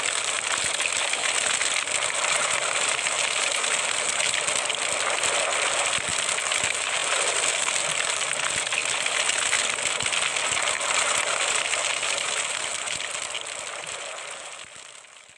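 Burning fire sound effect: a steady hiss of flames with many small crackles, fading out over the last few seconds.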